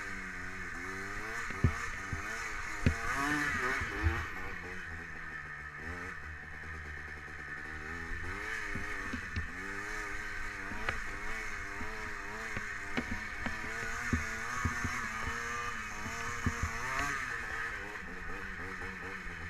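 Yamaha Blaster 200 quad's two-stroke single-cylinder engine revving up and falling back again and again under throttle. A few sharp knocks stand out, the loudest near the start.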